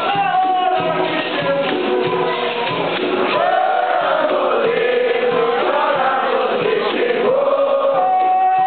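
Capoeira Angola roda music: voices singing together, with a long sung line in the middle, over the berimbaus and atabaque drum of the bateria.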